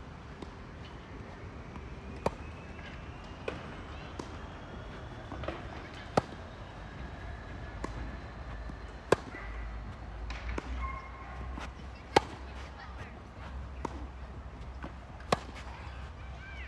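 Tennis rally: sharp pops of racket strings hitting the ball, a loud one every few seconds with fainter hits and bounces between, over a steady low rumble.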